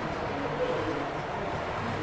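Model train's coaches rolling along the layout track: a steady running rumble over a background of room noise.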